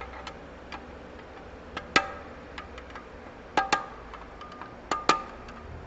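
Sharp metallic clicks and clinks of a screwdriver and pliers against a steel snap ring as it is worked into its groove inside a Chrysler 42RLE transmission case. There are about five clinks with a short ring, two of them in quick pairs.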